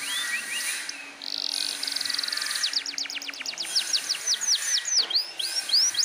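Domestic canary singing a fast, varied song: short rising chirps, a buzzing trill about a second in, then a run of quick downward-sweeping notes that slow into longer swooping notes near the end.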